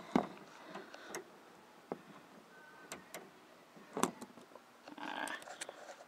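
Scattered light clicks and knocks, roughly one a second and one louder about four seconds in, from a socket on an extension being worked at the 8mm bolt through the inside door-handle opening of a Ford F-series truck door, with a short scuffing sound near the end.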